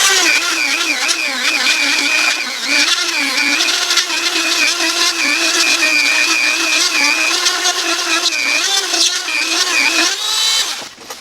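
Small high-speed power tool running steadily, its bit cutting into heart pine, with the pitch wavering slightly as the load changes; it stops near the end.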